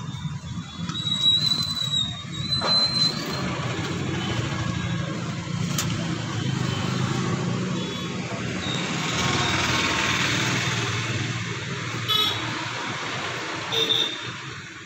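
Outdoor street ambience with steady road traffic running. A thin high tone sounds for a second or two about a second in, and a few short sharp sounds come near the end.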